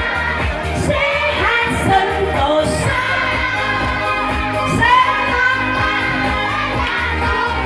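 Singing voices, a woman's among them, over backing music with a steady bass line.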